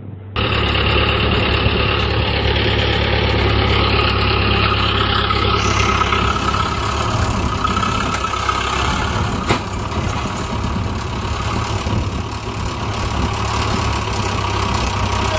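Old farm tractor's engine running steadily while the tractor sits stuck in mud, cutting in suddenly about half a second in. A single sharp click about two thirds of the way through.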